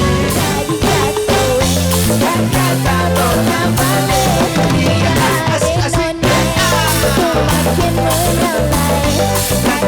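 A band playing loud rock music with drum kit and guitar, a short break about six seconds in.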